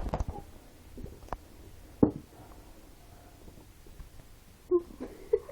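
A few faint clicks and knocks, then a short low burp near the end.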